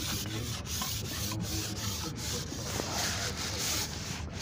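A steady rubbing, rasping noise, broken by short regular gaps about two or three times a second, over a low steady hum.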